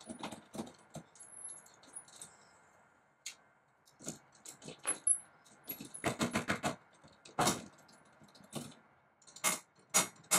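Keys jangling and a front door's handle and lock rattling in several short bursts of clicks and knocks as someone tries to get the door open; it does not open.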